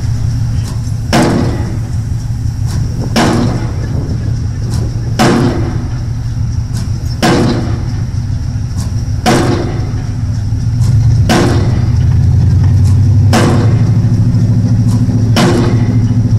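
Bruce SGH-0312 hydraulic impact hammer driving a square concrete pile, striking about once a second with sharp blows, alternately stronger and weaker. Under the blows runs the steady drone of the excavator's engine, which grows louder about eleven seconds in.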